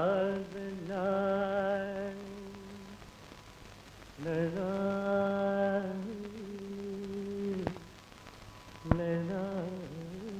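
Men singing long held notes together in a Carnatic-style vocal exercise: three sustained phrases, each sliding up into a wavering vibrato. A sharp knock comes just before the third phrase.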